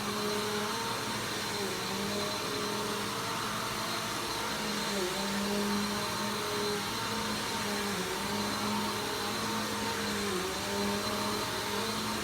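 Vacuum cleaner running steadily, a motor hum with a high whine over airflow noise, its pitch dipping briefly every few seconds.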